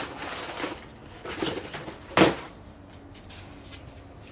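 Cardboard box and packing material rustling as a small parcel is opened and an item pulled out, with one louder short rustle about two seconds in.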